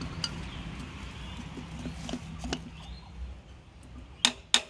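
Steel spanner clinking against the bolt head on a tractor's power steering filter cover: scattered light metal taps, then two sharp clinks about a third of a second apart near the end.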